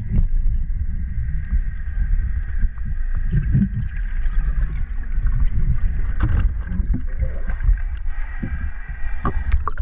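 Muffled underwater pool noise heard through a GoPro's sealed underwater housing: a dense low rumble of moving water with a faint steady whine running through it and a few soft knocks.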